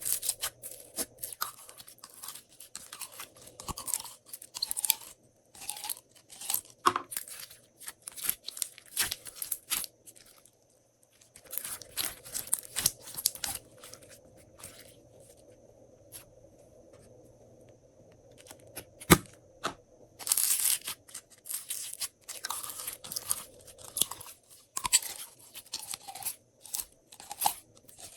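Glossy slime being worked by hand, squeezed, stretched and folded, giving quick runs of wet clicks and crackles as air pockets pop. It eases off for a few seconds in the middle, broken by one sharp pop, then picks up again.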